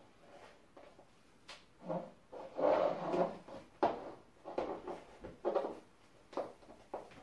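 Stiletto heels knocking on a wooden floor in a few irregular taps as the wearer shifts her feet, with rustling in between.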